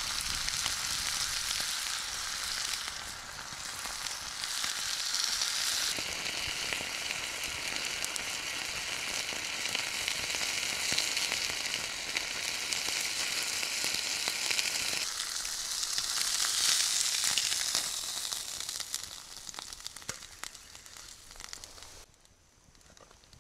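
A piece of meat sizzling in a small frying pan over an open wood fire: a steady frying hiss with fine crackles. It dies down near the end.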